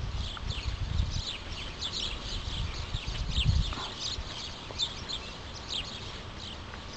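Small birds chirping over and over in the background, with low rumbling gusts of wind on the microphone about a second in and again, loudest, around three and a half seconds in.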